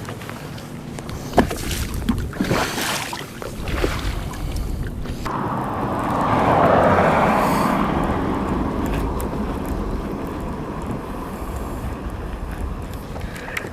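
Knocks and handling noise on a fishing boat in the first few seconds, then a sudden rush of wind-and-water-like noise about five seconds in that swells and slowly fades.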